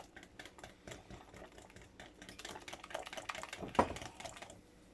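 Pancake batter being stirred in a mixing bowl: quick, irregular clicks of the utensil against the bowl, with one louder knock near the end.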